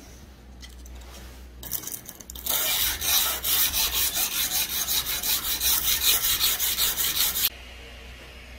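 Hand sanding of a wet steel knife blade made from a bearing race: abrasive paper rubbed in quick back-and-forth strokes along the clamped blade. It starts about a second and a half in, gets louder a second later, and stops suddenly near the end.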